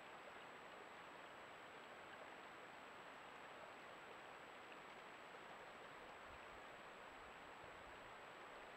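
Near silence: the steady hiss of a trail camera's microphone, with a faint steady high tone.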